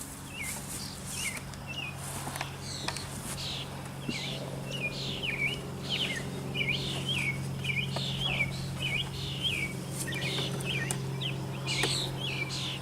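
A songbird chirping over and over in quick short falling notes over a steady low hum.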